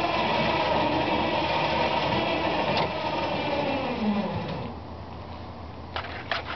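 Small motor of a homemade self-loading boat rack running with a steady whine as it moves a canoe along the rack, then slowing with a falling pitch and stopping about four and a half seconds in. A few sharp clicks follow near the end.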